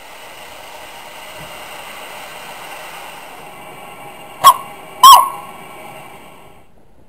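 Steam locomotive whistle giving two short loud blasts about half a second apart, the second dropping in pitch as it dies away, over a steady hiss of steam.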